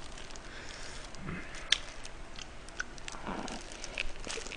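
Gloved hands fold a napa-cabbage bossam wrap, making scattered small clicks and crackles. Near the end comes a bite into the wrap, with soft, moist mouth sounds.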